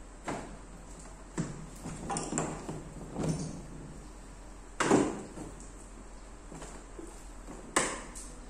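Aluminium floor panels of an inflatable boat being handled and pressed into place: a series of knocks and bumps, the loudest about five seconds in and another near the end.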